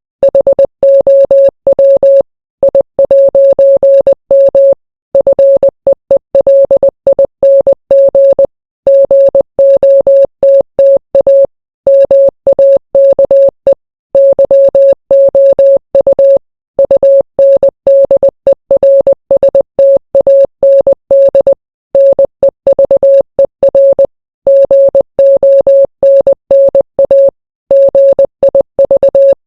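Morse code sent as a single steady-pitched beep, keyed rapidly on and off in dots and dashes. Short silent gaps fall every few seconds between groups.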